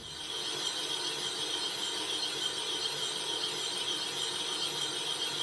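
Metal lathe boring out a Moto Morini motorcycle cylinder with a boring bar: a steady cutting noise with a high, even whine.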